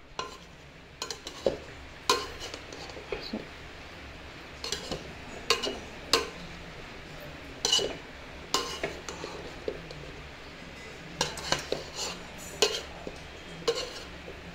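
Metal spoon stirring and scooping cooked rice in a metal pot, clinking and scraping against the pot's sides in irregular strikes, some with a brief metallic ring.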